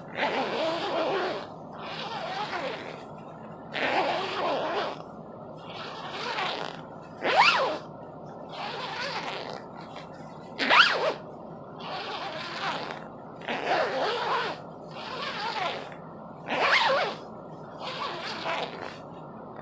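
Small plastic zipper on a nylon windbreaker being zipped up and down over and over, about a dozen strokes with short pauses between them. The zipper is quite loud. A few quick, sharp pulls stand out as louder than the rest.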